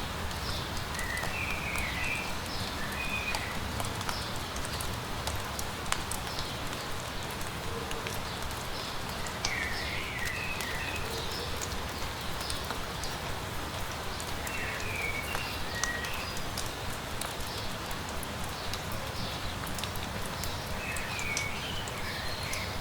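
Steady light rain hissing, with scattered drops ticking close by. A songbird repeats a short chirpy phrase four times, every five or six seconds.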